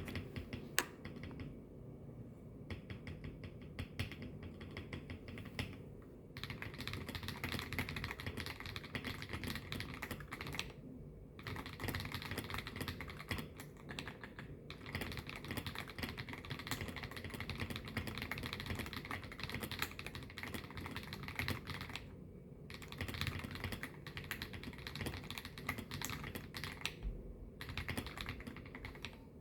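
Typing on a MYNK65 mechanical keyboard with Akko Snow Blue Grey switches and Cherry clip-in stabilizers, all lubed with Krytox 205g0, picked up through a phone's microphone. A few scattered keystrokes give way to fast continuous typing after about six seconds, broken by several brief pauses.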